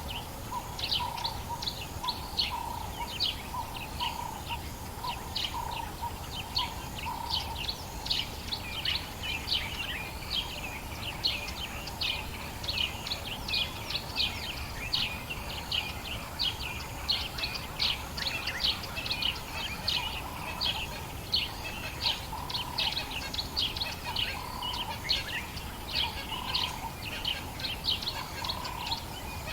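Dawn chorus of many birds: a dense stream of quick, high chirps. A lower call repeats about once a second at first, then comes only now and then.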